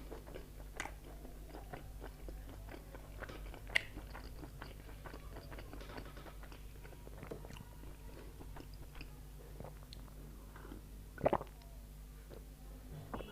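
Close-miked chewing and biting of food: a run of small wet mouth clicks and smacks, with a sharper click about four seconds in and a louder double crunch around eleven seconds.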